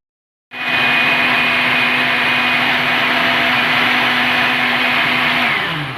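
Electric blender running steadily as it blends pineapple pieces with water into juice, its motor giving a constant whine. It starts about half a second in, and near the end it is switched off and the whine falls as the motor spins down.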